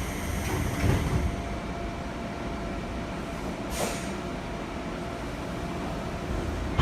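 Seibu Tamagawa Line electric train heard from inside the car: a steady running rumble with a faint steady tone. There is a knock about a second in and a short burst of hiss near the middle.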